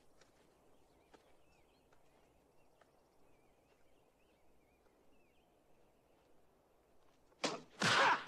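Faint outdoor film ambience with light bird chirping. About seven and a half seconds in, a burst of loud, sharp fight sound effects begins as blows land.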